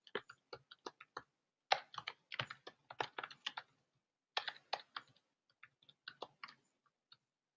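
Faint typing on a computer keyboard: quick runs of key clicks, with a short pause about halfway through and sparser taps near the end.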